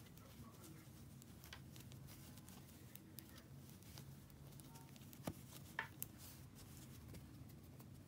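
Near silence: a faint low hum with a few small clicks of 3.5 mm metal knitting needles as stitches are purled. Three clicks come close together a little past the middle.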